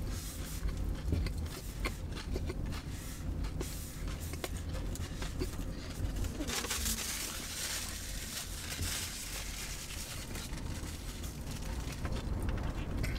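Close-miked chewing of a crunchy panko-breaded fish sandwich: a run of small crunches and mouth clicks, with a soft hiss for a couple of seconds around the middle, over a low steady hum.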